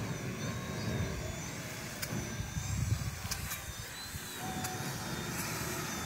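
Distant whine of a small RC plane's brushless electric motor and propeller: a thin high tone that wavers up and down in pitch as the plane manoeuvres. Gusty wind buffets the microphone underneath it.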